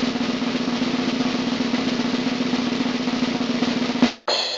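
Snare drum roll, a fast steady rattle lasting about four seconds, ending in a hit and a cymbal crash that rings out near the end.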